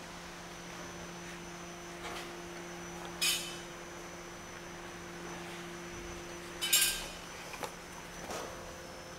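Sharp metallic clicks of a hand tool working the edge of a COLORBOND steel fascia sheet: one about three seconds in, then a louder quick cluster near seven seconds and a few lighter ones after. A steady low hum runs underneath.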